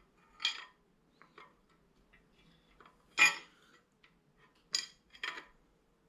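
Metal clinks and clanks of a wrench working the cam bearing installer tool, tightening its collet inside a new camshaft bearing. There are four sharp metallic knocks with fainter ticks between them, and the loudest comes about three seconds in.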